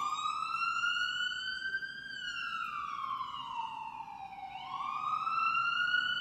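Police siren in a slow wail: one tone climbing for about two seconds, sliding back down over the next two and a half, then climbing again.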